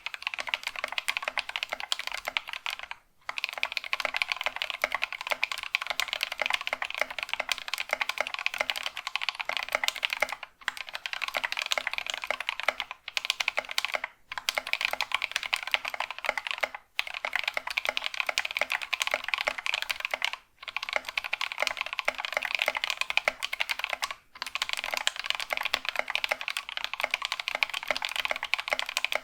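Fast typing on a mechanical keyboard fitted with Gateron Caps gold (yellow) linear switches, which have been lubed with Krytox 205g0 over their heavy factory lube and filmed. Some of the switches sound sticky and muted, a sign of too much lube. The typing comes in runs of several seconds with brief breaks between them.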